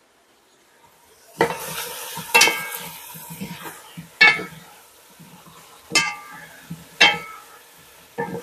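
Wooden spatula stirring potatoes and carrots in a metal pot, knocking against the pot about five times with a short metallic ring. Under the knocks is a steady sizzle of the vegetables frying in oil, starting about a second and a half in.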